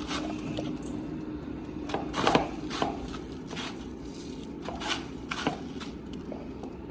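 Scattered light taps, scrapes and crunches of food being handled in bowls as raw chicken pieces are dipped in egg and coated in panko breadcrumbs, the loudest about two seconds in and again around five seconds.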